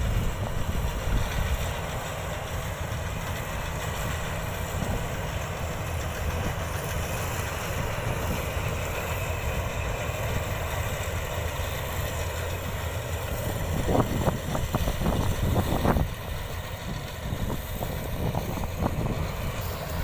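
Combine harvester's diesel engine running steadily, a continuous low rumble, with a few louder brief bursts about three-quarters of the way through.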